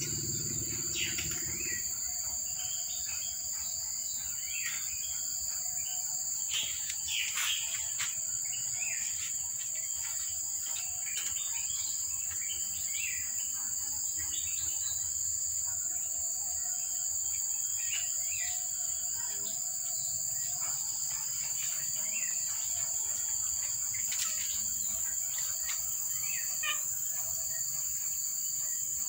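Birds chirping in short calls on and off, over a steady high-pitched drone.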